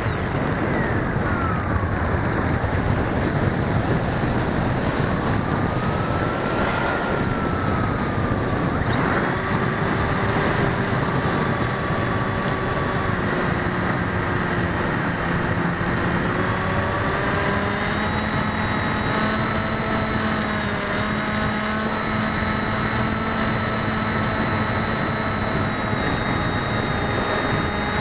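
Electric motors and unbalanced propellers of an RC aircraft, heard from an onboard keychain camera, whining steadily under heavy wind noise. The pitch shifts with the throttle, dipping about a second in, rising then falling sharply around eight to nine seconds in, and stepping up again near the middle.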